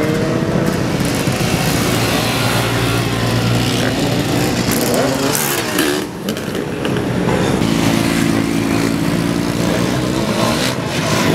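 Several motorcycle engines, dirt bikes and a sport bike, revving and running past together in a dense, overlapping engine noise. One engine's pitch rises near the start, the sound dips briefly about halfway through, and a steady engine note holds later on.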